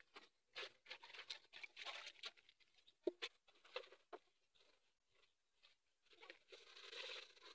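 Faint hand-scrubbing of aluminium cooking pots (sufuria): irregular scratchy scouring strokes, a single sharp knock about three seconds in, a short lull, then more scrubbing near the end.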